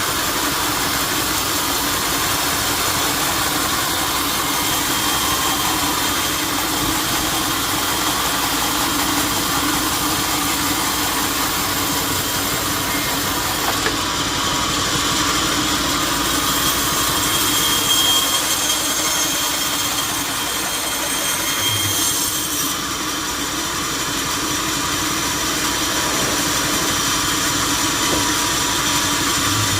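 Sawmill machinery running steadily: a constant engine-like drone under a wide hiss, changing slightly in tone about halfway through and again a few seconds later.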